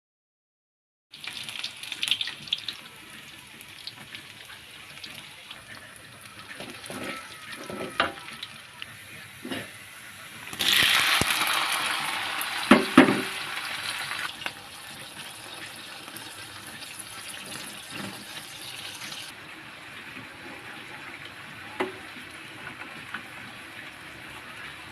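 Kitchen cooking sounds: scattered clinks and knocks of utensils and cookware over a low hiss, and about ten seconds in a loud hiss that starts suddenly and fades over about four seconds, with two sharp knocks in it.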